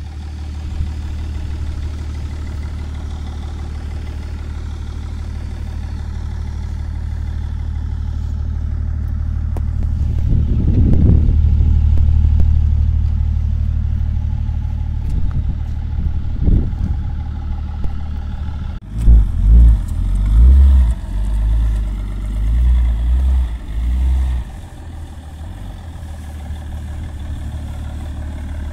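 BMW E39 530d's 3.0-litre straight-six turbodiesel idling through an aftermarket Proex exhaust and being revved: a slow swell in revs about ten seconds in, a couple of short blips, then a run of quick sharp revs a little past the middle before it settles back to a steady idle.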